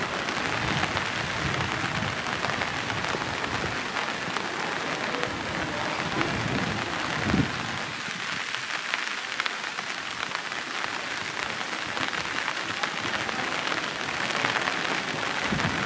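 Steady rain pattering: a dense hiss of fine drop ticks, with one short knock about seven seconds in.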